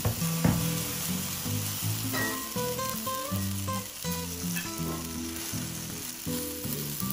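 Yamaimo-and-cabbage okonomiyaki batter sizzling and frying in a hot stainless-steel electric skillet as a metal spoon spreads it out. Background music plays over the sizzle.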